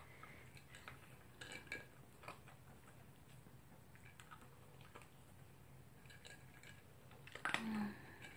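Toy poodle eating dry kibble from a plastic bowl: faint, scattered crunching and pellets clicking against the bowl. A brief louder noise comes near the end.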